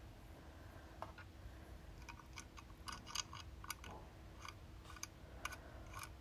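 Faint, light clicking and ticking from the small brass screw cap being twisted on the spout of a metal watercolour-palette water flask. An irregular string of clicks, several a second, starts about two seconds in.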